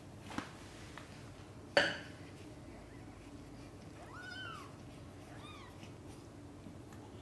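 Newborn kittens mewing: two short, thin cries that rise and fall, about four and about five and a half seconds in. A sudden sharp sound just under two seconds in is the loudest thing, with a faint click before it.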